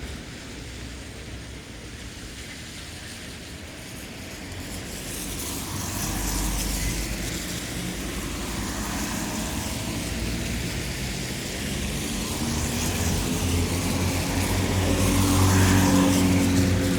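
Light town traffic on a wet road: the hiss of tyres on wet asphalt, with a car's engine hum growing louder in the second half as it approaches and passes.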